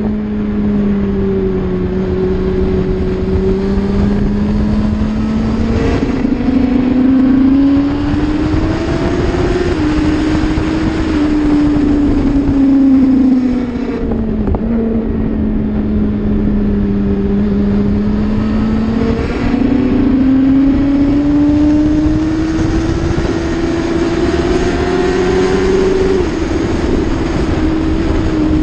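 Racing motorcycle engine heard onboard at speed, its note climbing under acceleration and dropping back several times as it changes gear and eases off for corners.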